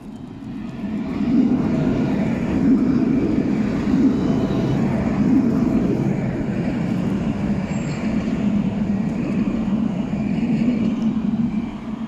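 Alstom Citadis low-floor electric tram passing close by on its rails, a steady running rumble that swells about a second in and falls away near the end.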